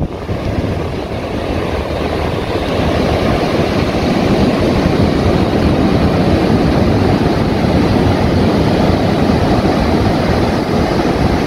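Ocean surf breaking on a sand beach, with wind buffeting the microphone: a loud, steady, dense rumble with no distinct events.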